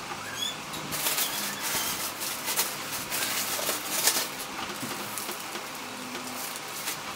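A few short bird chirps at the start, then a few seconds of loud rustling and scraping noise that dies down about halfway through.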